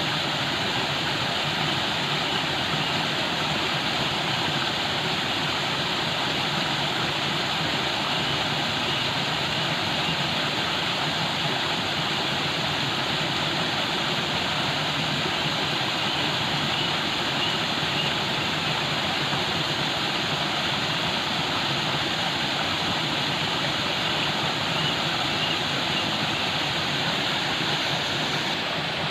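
Falling water rushing steadily: a constant, even hiss with no breaks or changes.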